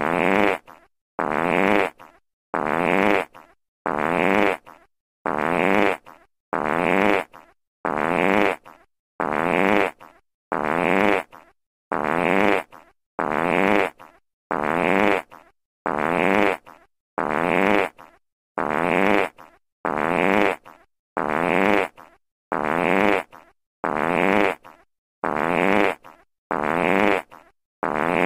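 A fart sound effect looped over and over: the same pitched, buzzy blast about once every second and a half, each loud at the start and trailing off, with a short gap of silence between repeats.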